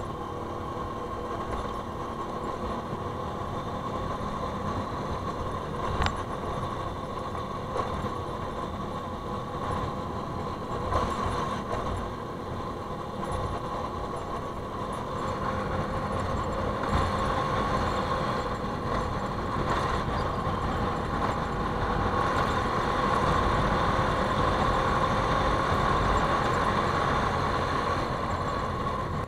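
Bajaj V15 motorcycle's single-cylinder engine running as the bike rides over a broken, potholed gravel road. There is a steady rumble, and a few sharp knocks come as the bike jolts over the bumps. The noise grows louder about halfway through.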